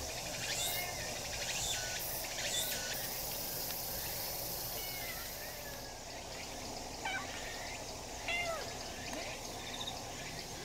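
Tabby kitten meowing repeatedly in short high calls: several in quick succession near the start, then a few more spaced out later.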